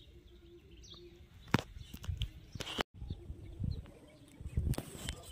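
Feral rock pigeon cooing faintly, a low note in short broken pieces in the first second or so. A sharp click follows, and low muffled thumps come in the second half.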